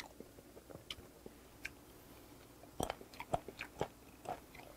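Close-miked chewing of heavily fermented skate (hongeo): scattered sharp wet mouth clicks, thickest about three seconds in.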